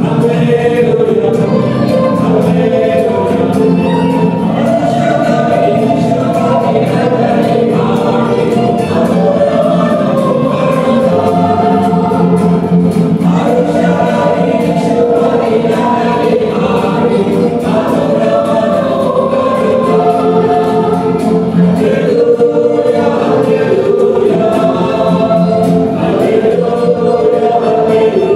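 Mixed church choir of women's and men's voices singing a Christian song, accompanied by guitars.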